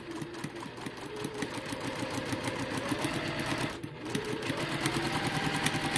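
Domestic sewing machine stitching at a steady speed, the needle running rapidly through a paper foundation guide and two layers of fabric, with a brief break about four seconds in.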